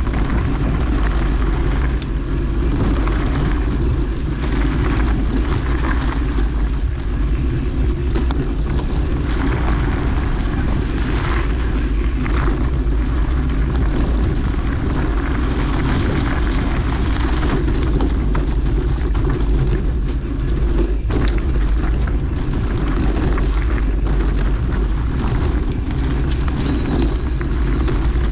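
Steady wind buffeting on the microphone and tyres rolling over a dirt trail during a mountain-bike descent, with occasional short knocks and rattles.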